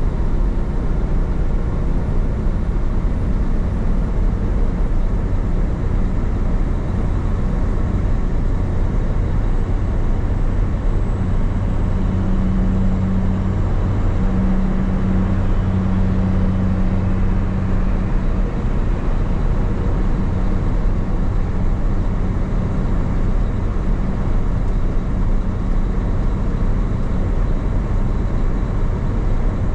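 Semi truck cruising on the highway, heard from inside the cab: steady road and tyre noise under a low diesel engine drone that swells for a few seconds in the middle.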